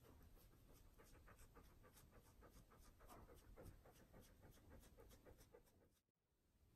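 Border collie panting quickly and faintly with its mouth open, an even run of soft breaths several times a second, fading out near the end.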